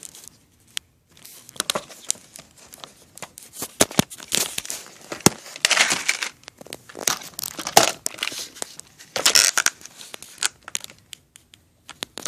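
Handling noise: clothing rustling and scraping against the phone's microphone, with many irregular sharp clicks and knocks.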